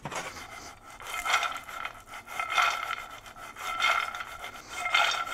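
Oil-coated almonds sliding and rattling across a frying pan as they are tossed. There are four swishing, scraping strokes, about a second and a quarter apart.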